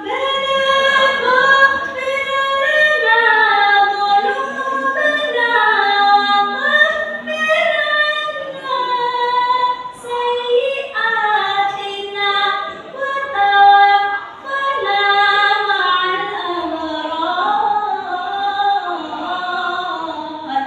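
A young female voice reciting the Quran unaccompanied in the melodic tilawah style, drawing out long notes that glide and waver between pitches, with a few short pauses.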